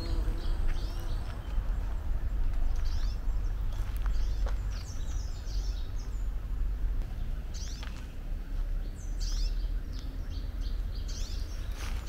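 Small songbirds chirping and singing in repeated bursts of quick, falling high notes, over a steady low rumble.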